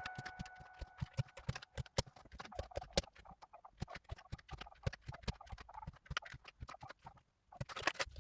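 Typing on a Royal Kludge RK84 mechanical keyboard fitted with Akko Cream Yellow V3 linear switches: a fast, irregular run of keystroke clacks. A music track fades out at the start.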